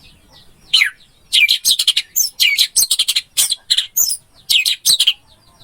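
Orange-headed thrush singing: a loud, fast jumble of varied high notes that starts about a second in and stops about five seconds in. A faint chirp repeats about three times a second behind it.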